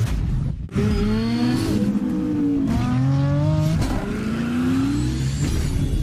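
Car engine revving up and down several times over a deep rumble, as in a race-car sound effect; the pitch climbs and falls repeatedly, starting abruptly under a second in.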